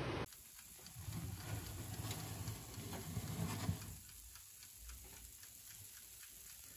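Electric deep fryer: a low hum with faint crackling and ticking from the hot oil. About four seconds in it drops to a quieter faint ticking.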